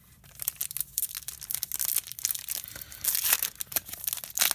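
Foil wrapper of a 2020 Topps Update Series baseball card pack crinkling and crackling as it is picked up and handled in the hands, in dense rapid crackles that get louder about three seconds in.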